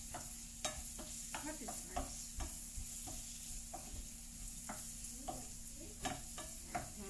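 Sliced onions sizzling in hot oil in a non-stick frying pan as they soften, stirred with a wooden spatula that knocks and scrapes against the pan about twice a second in an uneven rhythm under a steady hiss of frying.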